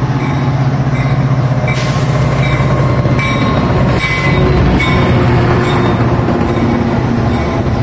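Metra diesel locomotive passing close by with a steady engine drone, followed by bilevel passenger coaches rolling past, with short high-pitched wheel squeals recurring from about two seconds in.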